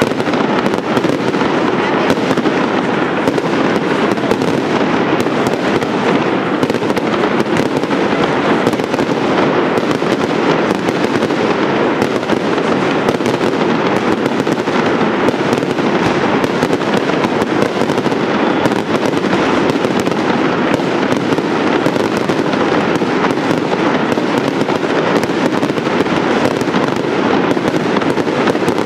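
Fireworks display firing without let-up: a dense barrage of rapid crackles and bangs from ground fountains and aerial shells that burst into crackling sparks.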